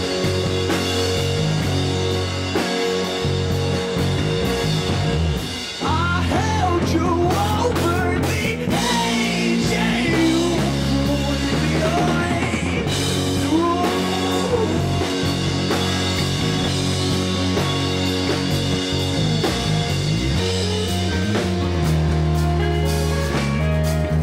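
Rock band playing live: two electric guitars over a drum kit in an instrumental stretch of the song. From about six seconds in, wordless singing with bending, gliding pitch rides over the band for several seconds.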